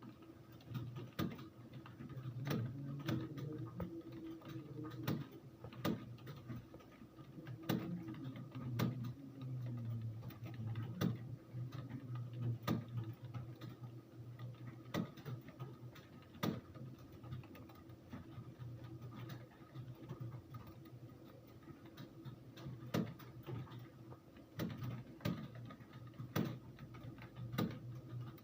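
Computer keyboard keys pressed one at a time at an uneven, slow pace, sharp clicks over a steady low hum.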